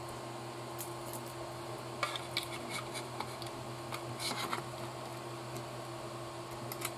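Faint clicks and light rattles of small plastic parts and screws being handled while a servo is fitted to an RC car chassis, over a steady background hum.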